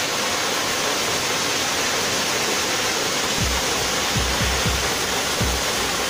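The Jantur Inaar waterfall's falling water gives a steady, even rush. From about halfway through, soft low thumps come and go under it.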